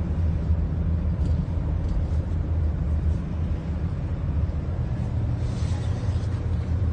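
Steady low rumble of a car driving, with no other distinct sounds standing out.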